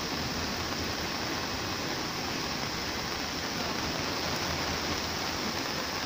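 Steady rush of rain and wind, with passenger coaches rolling past below.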